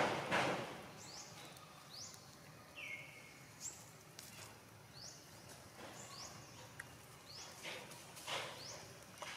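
Outdoor ambience with a series of short, high chirping calls, about one a second, and one lower falling whistle about three seconds in. Brief rustling hisses come at the start and again near the end.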